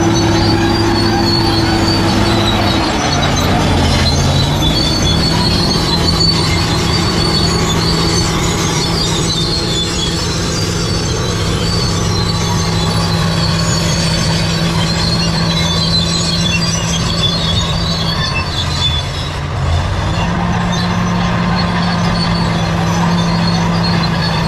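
Bulldozer working: its diesel engine running steadily under load while the steel crawler tracks squeal and clatter. The engine pitch shifts about three seconds in and again near the end.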